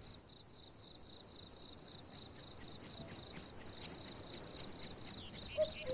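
Insect chorus in a summer field: a steady, high-pitched trill, with a few short chirps toward the end.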